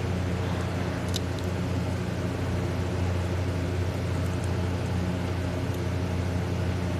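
A steady low mechanical hum, made of several even tones and unchanging throughout, with a faint click about a second in.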